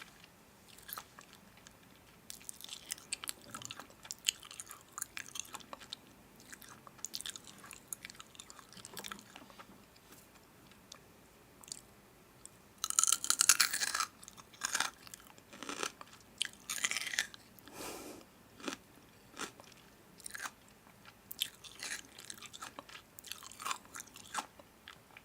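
A person chewing crunchy food close to the microphone: irregular crisp crackles and crunches, with the loudest burst of crunching about halfway through.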